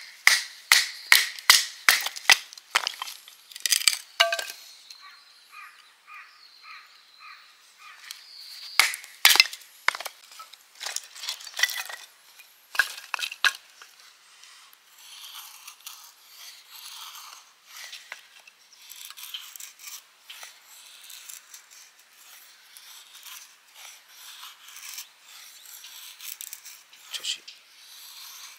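A fixed-blade knife splitting kindling, a quick series of sharp wooden knocks at the start and another cluster about nine seconds in. From about fifteen seconds on, a knife shaving a split stick into feather-stick curls: a run of rasping scrapes about once a second.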